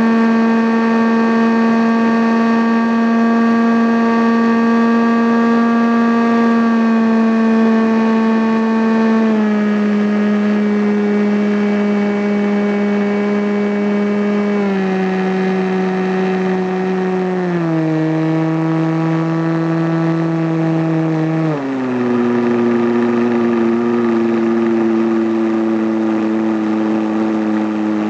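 Radio-controlled model airplane's engine running at high speed, heard close up from a camera on the plane with a steady rush of wind. Its pitch steps down four times, at about a third, a half, two-thirds and three-quarters of the way through, as the engine is throttled back.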